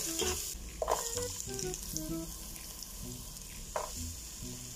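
Chopped garlic sizzling as it sautés in oil in a stainless steel pot, louder for the first half second and then quieter, with a spoon scraping the pot about a second in and again near the end.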